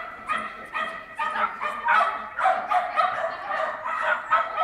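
Shetland sheepdog barking rapidly and repeatedly while running an agility course, short high-pitched barks about three a second.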